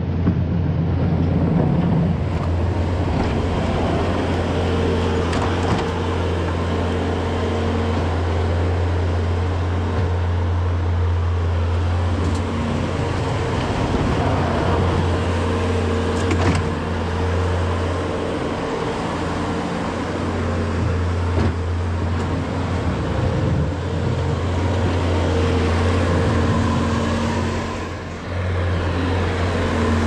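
Bobcat skid-steer loader's diesel engine running steadily as it scrapes out a manure alley, with a brief dip in level near the end.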